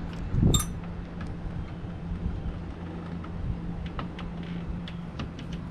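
Hand work on an RV door lock: one sharp metallic clink about half a second in, then scattered light clicks and taps, over a steady low hum.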